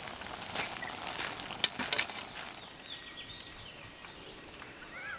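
A handful of sharp clicks and knocks in the first two and a half seconds, the loudest about a second and a half in, followed by small birds chirping.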